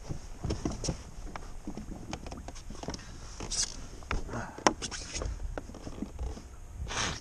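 Handling noises on a plastic kayak deck: scattered knocks, clicks and taps, the sharpest about four and a half seconds in, with a couple of brief rustles, as a dead mackerel and gear are handled.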